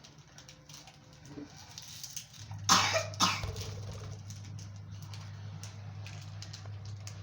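Two short coughs about half a second apart, over a steady low hum.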